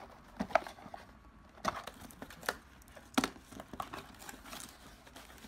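Small white cardboard box opened by hand: its flaps and packing rustle and crinkle, with a string of short knocks and scrapes.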